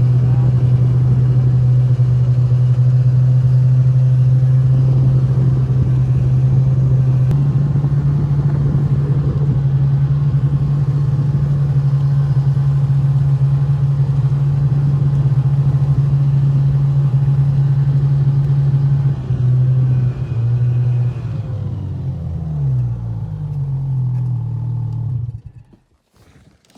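Snowmobile engine running steadily under way, a loud even drone; near the end its pitch wavers and shifts as the speed changes, then it cuts off.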